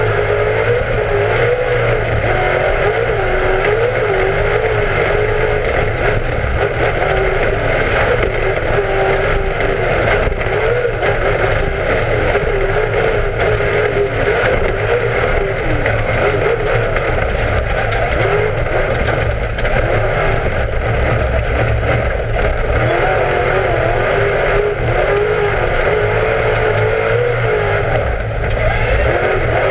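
Class 1 off-road race car engine running hard under constant throttle changes, its pitch rising and falling every second or two over a heavy low rumble.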